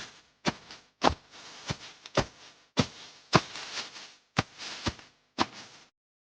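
A series of sharp knocks or taps, roughly two a second, with a fainter scraping noise between them, stopping abruptly about six seconds in.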